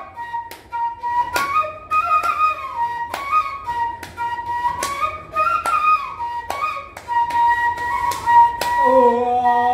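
Bahi, the Assamese bamboo flute, playing a Bihu tune: a melody that slides between notes, over regular sharp taps about twice a second.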